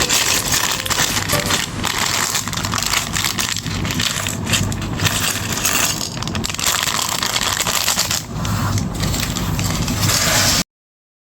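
Dense, continuous crunching and crackling noise that cuts off abruptly about ten and a half seconds in.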